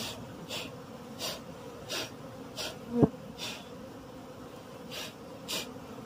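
Steady hum of a disturbed wild honeybee colony streaming out of its tree hollow as it is smoked out, with bees crawling close to the microphone. Short hissing noises recur every half second to a second, and a brief louder buzz sweeps past about three seconds in.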